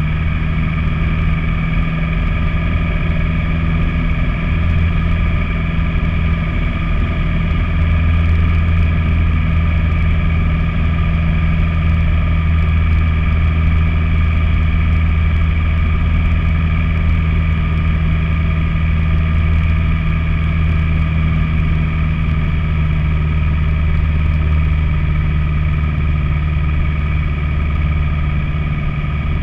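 Single-engine light aircraft's piston engine and propeller droning steadily in flight, heard inside the cockpit.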